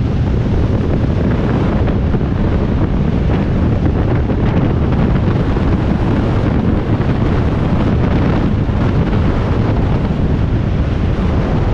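Steady, loud wind buffeting on the microphone of a camera riding on a motorcycle at motorway speed.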